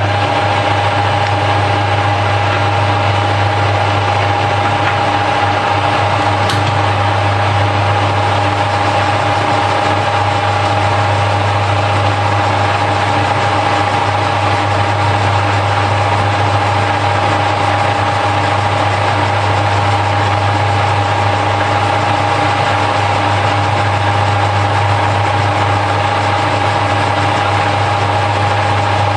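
Harrison L5 lathe running at a steady speed, its motor and gearing giving an even hum with a steady whine above it, while it turns a bar down to 13.95 mm on a finishing pass.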